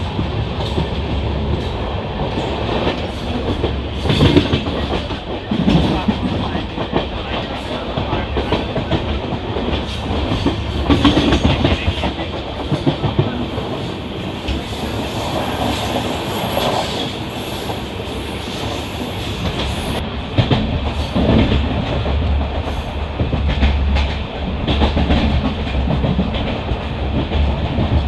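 Passenger train running along the line, with a steady rumble and the clickety-clack of coach wheels over rail joints at irregular intervals.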